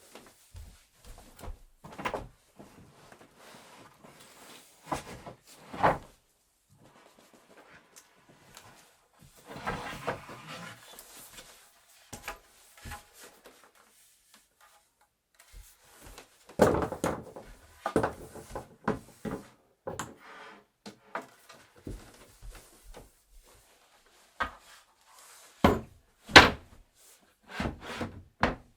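Wooden bed parts being handled and fitted together: irregular knocks, clunks and thuds of wooden boards, with a longer scraping, rustling stretch about ten seconds in and a cluster of sharp knocks in the second half.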